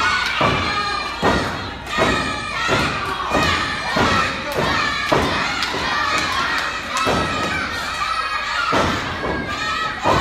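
A small crowd in a hall, children's voices loudest, shouting and cheering over a run of sharp thuds that come about every half second to second, with a harder thud right at the end.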